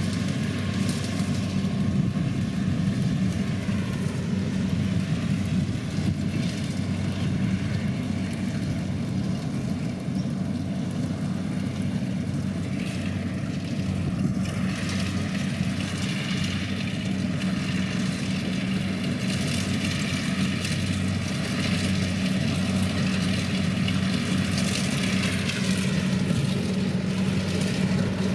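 Kubota DC105 combine harvester running steadily with a constant diesel engine hum. A higher whine above it dips and rises again twice.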